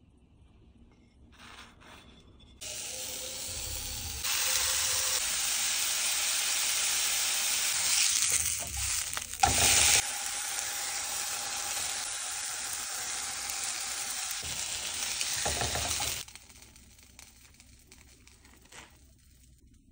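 Burger patty sizzling in a hot frying pan: the frying starts about two and a half seconds in, grows louder a couple of seconds later, flares briefly about halfway through, and cuts off about sixteen seconds in.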